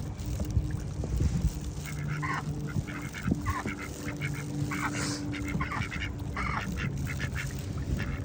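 Ducks calling: a run of short, harsh quacks in several groups from about two seconds in, over a low steady hum.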